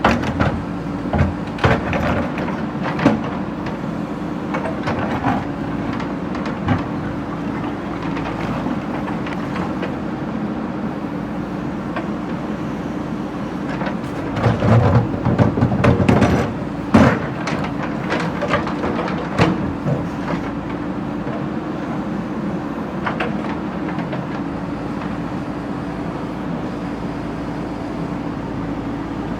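JCB backhoe loader's diesel engine running steadily under load, with irregular clanks and knocks of the steel bucket striking and scraping broken brick and stone. The knocking comes in a dense cluster about halfway through.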